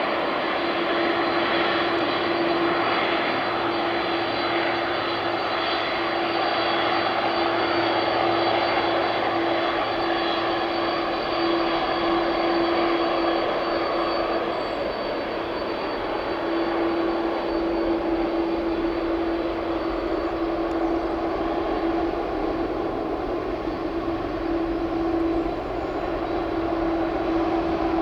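Boeing 747-400 freighter's four jet engines running steadily: a constant whine over a broad rush of jet noise.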